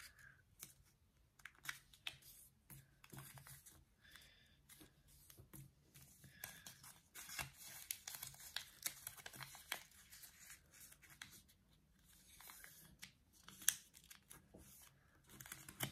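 Faint, intermittent rustling and crinkling of a sheet of origami paper being folded by hand, its creases pressed down with the fingers. Near the end there is one sharper click.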